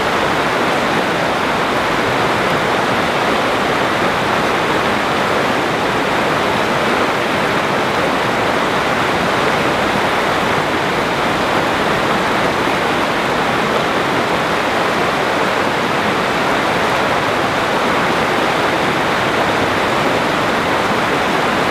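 Steady rush of river water pouring over a shallow rock ledge into whitewater.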